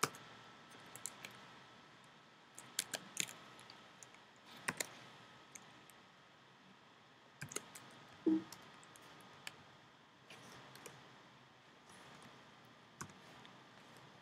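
Scattered keystrokes on a computer keyboard, a few clicks at a time with pauses between, while code is typed.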